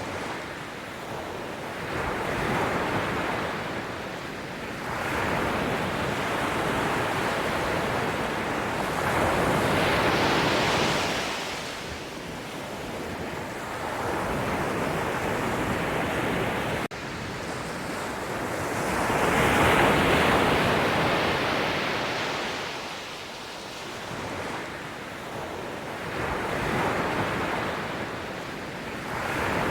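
Sea waves breaking and washing up, a rushing noise that swells and ebbs in slow surges every several seconds, with the biggest swells about a third of the way in and again past the middle.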